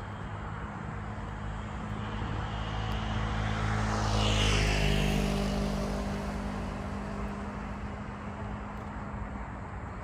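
A vehicle passing by: a steady low hum that swells to a peak about four to five seconds in, with a falling whoosh as it goes past, then fades away.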